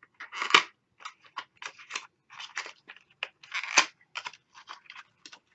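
A small concealer box being opened by hand, its paperboard flaps and packaging crinkling and scraping in quick, irregular strokes.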